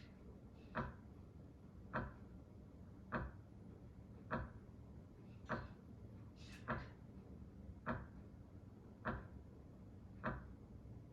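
Regular sharp ticks, about one every 1.2 seconds, over a faint low hum.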